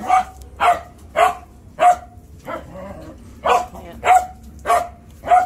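A dog barking over and over in short, sharp barks, a little under two a second, with a brief pause about halfway through.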